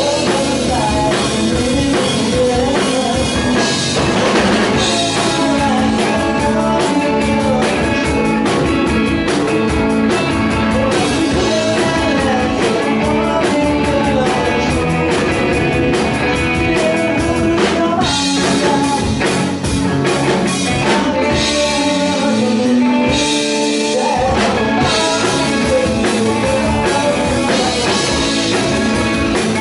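Live rock band playing at full volume: a man singing lead over electric guitar, bass guitar and a drum kit.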